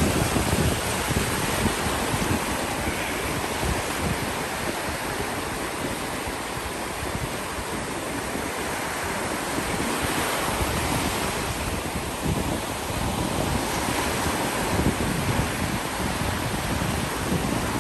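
Ocean surf breaking and washing up the beach in a continuous rush, with wind buffeting the microphone in low, uneven gusts.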